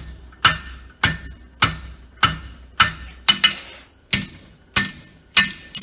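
Hand hammer striking a hot horseshoe on an anvil, bending the shoe over the anvil's side: about ten evenly paced blows, a little under two a second, each with a short high ring from the anvil.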